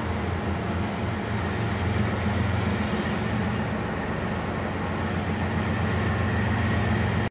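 Intermodal freight train passing: diesel locomotive engines rumbling, then double-stack container cars rolling by on the rails, with a faint high squeal growing near the end.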